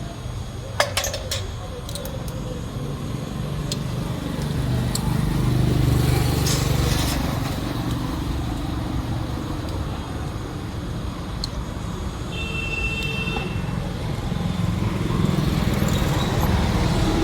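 Low steady rumble of motor vehicles that grows louder about six seconds in and again near the end. A few sharp clicks come about a second in, and a brief high tone sounds near the thirteen-second mark.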